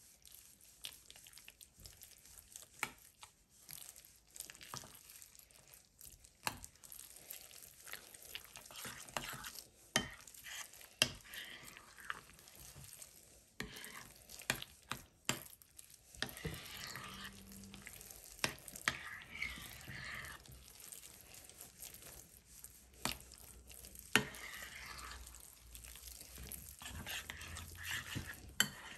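A spoon stirring and mashing roasted eggplant with yogurt and tahini in a ceramic bowl, with sharp clicks of the spoon against the bowl scattered throughout.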